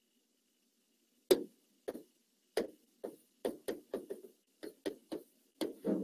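A dozen or so short, irregular taps and knocks, starting about a second in and coming faster toward the end: a teacher writing on a board.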